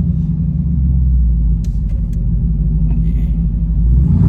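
Dodge Hellcat's supercharged 6.2-litre V8 running with a steady low rumble while driving, heard from inside the car. The engine note swells a little near the end.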